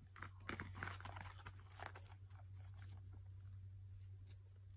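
Faint crinkling and rustling of paper planner bookmarks being handled, with small crackles in the first couple of seconds, then quieter.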